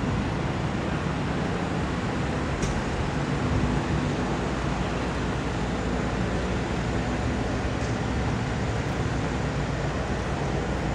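Steady city street noise of road traffic, with the faint hum of a passing engine and a few small clicks.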